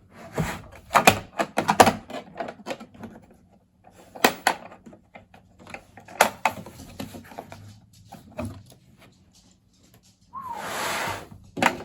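Cardboard box and packaging being opened and handled: a string of irregular knocks, taps and rustles, with a noisy scrape lasting about a second near the end.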